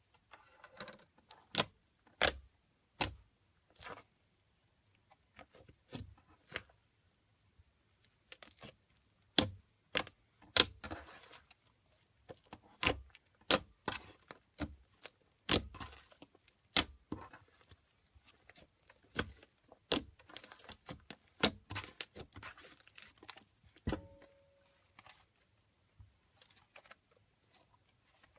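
Green slime played with by hand, giving irregular sharp clicks and pops, some in quick clusters.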